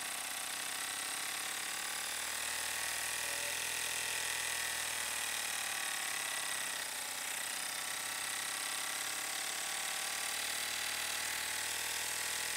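Baby Lock Enterprise ten-needle embroidery machine running steadily, sewing a satin-stitch border around the frame of a hooped design.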